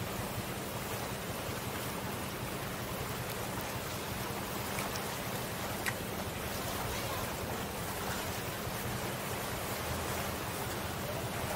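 Small waves of the bay washing against a boulder seawall: a steady rushing hiss, with a faint low hum underneath.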